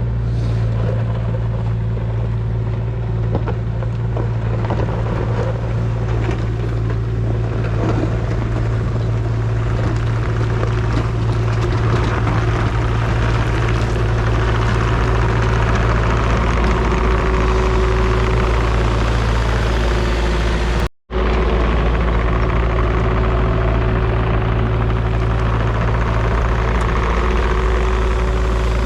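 Kubota KX040 excavator's diesel engine running steadily, with a strong low hum; the sound cuts out for a moment about twenty seconds in.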